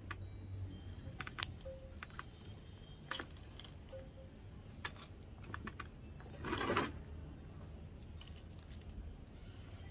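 A small knife cutting and scraping at the dry, fibrous husk of a sprouted coconut, giving irregular sharp clicks and snaps, with one longer rasping scrape about six and a half seconds in.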